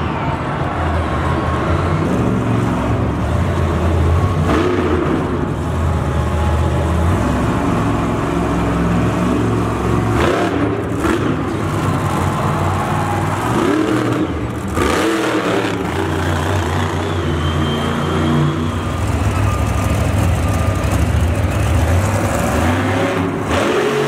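Monster truck's supercharged V8 being throttled hard and eased off again and again while the truck is balanced on two wheels, its revs rising and falling.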